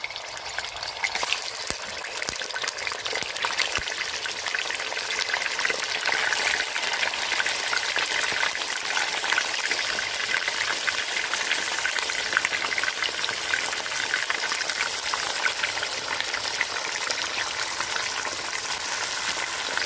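Chicken thigh pieces sizzling and crackling in hot sunflower oil in a granite-coated kazan. The sizzle swells over the first few seconds as more pieces go into the oil, then holds steady.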